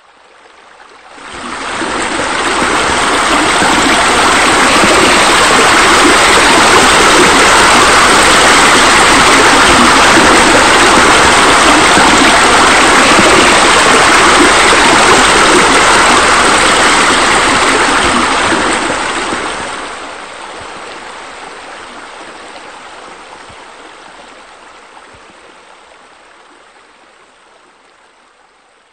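Steady rush of falling water, like a waterfall. It swells in over the first couple of seconds, holds steady, then fades away slowly from about two-thirds of the way through.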